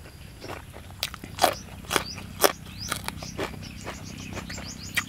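Crunching bites into a fresh yardlong bean, close to the microphone: four loud crunches about half a second apart, then softer chewing crunches.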